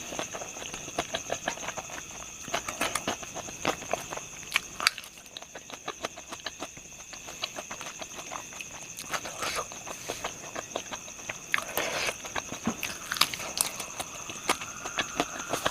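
Close-up chewing of crispy fried pork intestine and liver: rapid, irregular crunching and wet mouth clicks. A steady high-pitched whine runs underneath.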